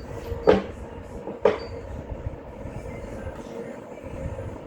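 Two sharp metallic clanks about a second apart, each ringing briefly, as a tool works on a bolt on the engine's accessory brackets, over a steady low rumble.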